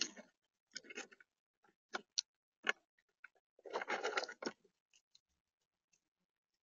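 Acorns clicking and rattling in a plastic tub as a grey squirrel digs through the pile: a few short scrabbles, the longest and busiest about four seconds in, then scattered single clicks.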